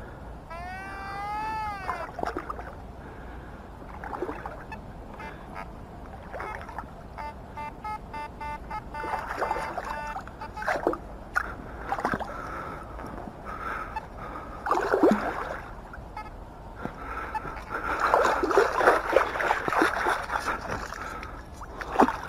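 Water splashing and sloshing as a scoop and coil are worked through shallow lake water, loudest in two bouts in the second half. A metal detector's pitched tones sound over it: a warbling tone about a second in and a quick run of beeps midway.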